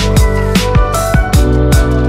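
Electronic background music with a steady beat: kick drums that drop in pitch, sharp percussive hits and held synth notes.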